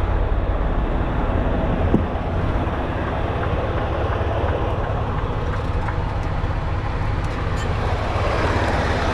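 Semi-truck's diesel engine idling with a steady low rumble, and a single click about two seconds in.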